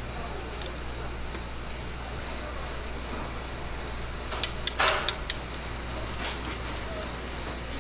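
Steady low hum and hiss of the stall's surroundings, broken about four and a half seconds in by a quick run of sharp metallic clinks, steel tongs knocking against the stainless-steel fryer pan and draining tray.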